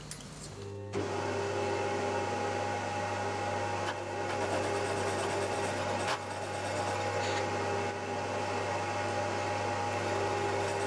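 Milling machine spindle switched on about a second in, then running steadily, spinning a 4-inch slitting saw: an even motor hum with a few constant tones.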